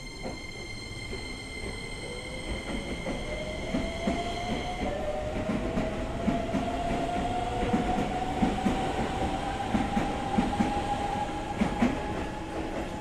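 Keisei electric commuter train pulling out and accelerating past: a steady high electric whine stops about five seconds in, while the motor whine rises slowly in pitch. The wheels clatter over the rail joints as the cars go by, growing louder and then easing off near the end.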